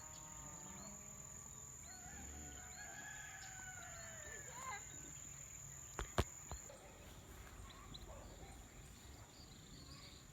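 Faint rooster crowing, with drawn-out calls in the first few seconds. Two sharp clicks come about six seconds in.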